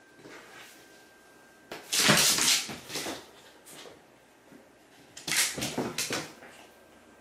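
A cat's paws scrambling and skidding on a hard floor while it chases a small toy ball, in two bursts of scuffling with quick thuds and clicks, about two seconds in and again about five seconds in.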